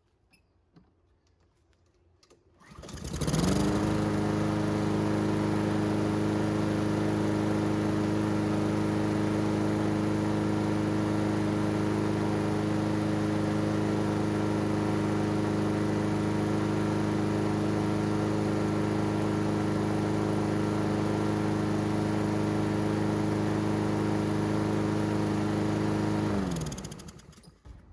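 Honda GCV160 lawn mower engine, air filter removed, pull-started about three seconds in, catching at once and revving up to a steady, even run. It keeps running without choking out, a sign that its wax-pellet automatic choke is opening properly. It is shut off near the end, its pitch falling as it stops.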